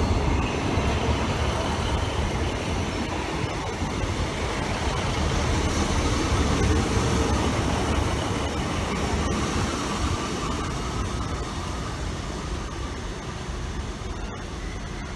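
Class 150 Sprinter diesel multiple unit pulling out of the station, its underfloor diesel engines running under power with the wheels rumbling on the rails. The sound grows quieter over the second half as the train draws away.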